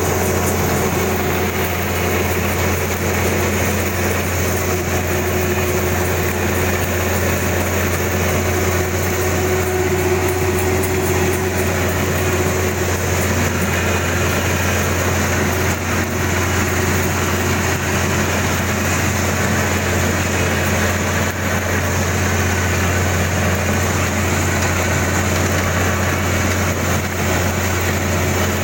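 Kubota DC-35 combine harvester's engine running steadily, with a constant low hum that does not change in pitch or loudness.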